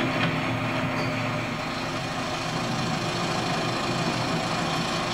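Engine of a construction machine running steadily, a low even hum with no change in pace.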